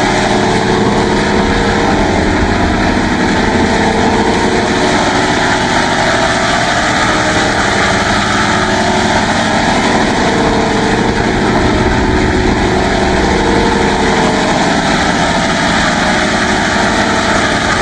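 Synthesized sound effect made with FL Studio's Vocodex vocoder: a dense, steady, engine-like drone whose tone sweeps slowly back and forth.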